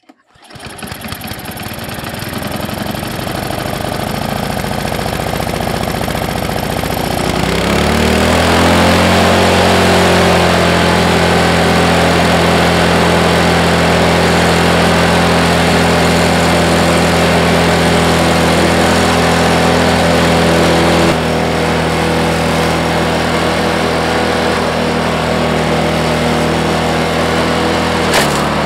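MTD two-stage snowblower engine, running on a newly fitted carburetor, starts and runs at a steady fast idle, set too high with the throttle a little above the rabbit mark. Its note changes and gets louder about seven seconds in and eases slightly later on, with a brief knock near the end.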